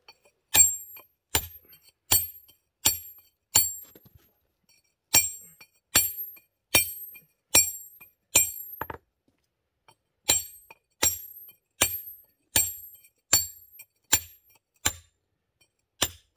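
A 3.5-pound walling hammer strikes a fire-sharpened 3-inch Riley nicker in a steady rhythm, steel on steel, each blow ringing. The blows come about one every three-quarters of a second, with two short pauses. The nicker is being driven along the bed of a reclaimed curb stone to split it.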